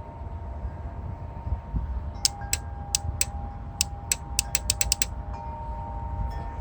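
A series of about a dozen sharp, light clicks, coming quicker near the end, over a low steady hum with a faint high whine.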